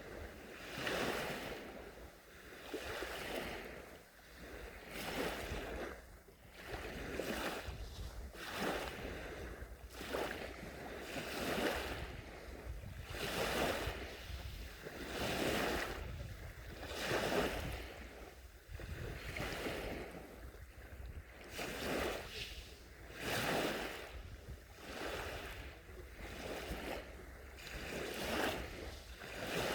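Small sea waves washing onto a beach, one gentle surge about every two seconds, each swelling and falling away.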